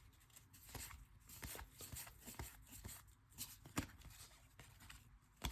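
Faint soft rustles and clicks of baseball trading cards being flipped through one by one, with a couple of sharper ticks, one past the middle and one at the very end.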